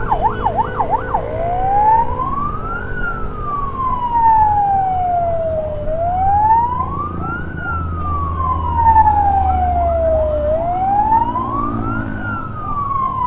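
Electronic emergency siren on the move: a fast yelp for about the first second, then a slow wail that rises and falls three times. Under it runs the steady low hum of the motorcycle ride.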